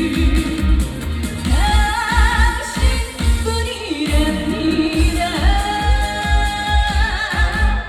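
Live trot pop music over loudspeakers: a steady thumping beat under a high, held melody line with vibrato.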